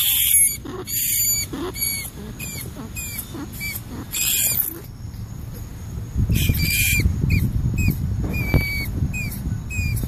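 Rat squeaking: a run of short, high-pitched chirps that dip in pitch, about two a second, broken by a few louder, harsher squeals, over a low rumble.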